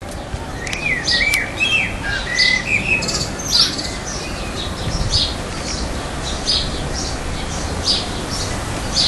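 Small songbirds chirping: short, repeated chirps about two a second, with a few whistled notes sliding up and down in the first three seconds, over a low steady rumble.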